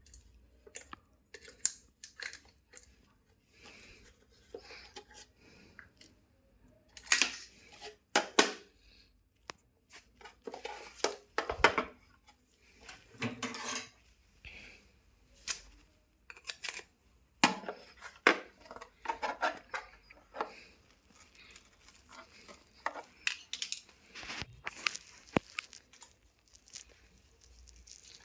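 Irregular clicks, taps and scraping of small hard parts being handled as a 12-watt LED light is worked on by hand for repair, with several louder clatters along the way.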